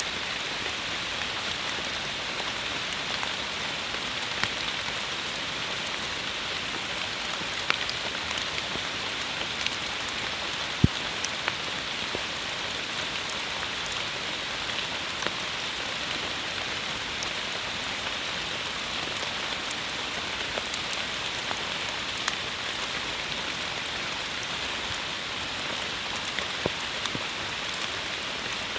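Steady rain falling on forest foliage: an even hiss with scattered louder drops, the sharpest about eleven seconds in.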